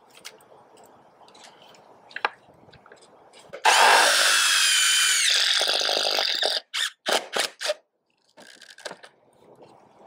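Cordless drill driving a lag screw through a fiberglass gutter into the wood behind: a loud motor whine for about three seconds, its pitch dropping as the screw bites, then four short bursts of the drill in quick succession.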